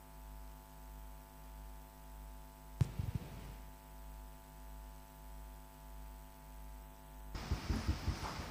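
Steady electrical mains hum from the sound system, with one sharp knock about three seconds in and a jumble of knocks and rustling starting near the end.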